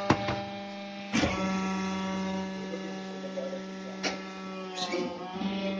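Hydraulic concrete block-making press running: its power pack gives a steady electric hum that grows louder about a second in as the ram moves, with a few metallic clicks and knocks from the press and pallet.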